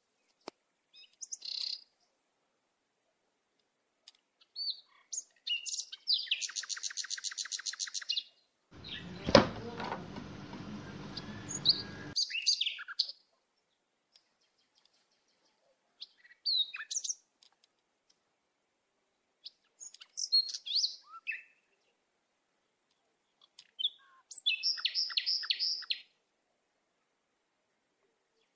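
Small bird chirping and trilling in short separate phrases, some as rapid repeated notes. About nine seconds in there is a sharp knock followed by about three seconds of noise.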